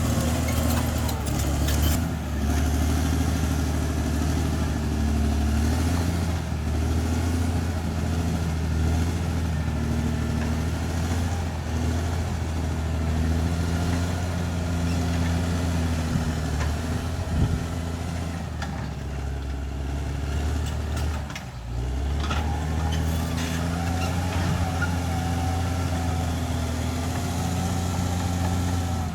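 Bulldozer engine running steadily while working, a deep even drone that dips briefly about three-quarters of the way through and then picks back up.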